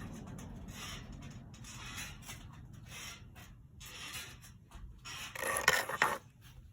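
Handling noise: small hard objects being rubbed and scraped against a surface in short irregular strokes, with a louder scrape about five and a half seconds in.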